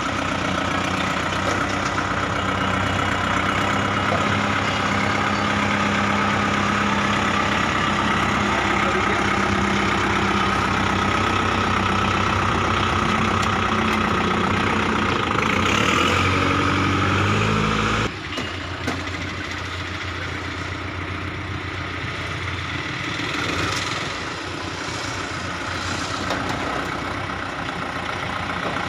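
Kubota MU4501 tractor's four-cylinder diesel engine running steadily at low speed as the tractor drives down the steel unloading ramps, its pitch shifting briefly a little past halfway. About two-thirds through the level drops suddenly to a quieter diesel idle.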